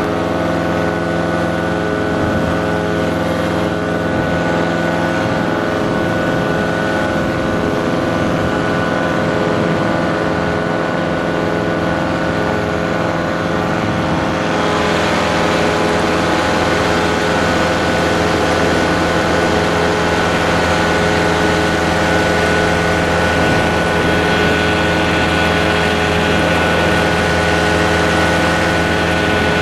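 Paramotor engine and propeller running steadily in flight, a constant drone that gets slightly louder and brighter about halfway through.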